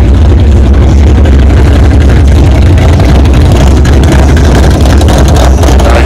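A vehicle engine running steadily and very loudly, with a heavy low hum.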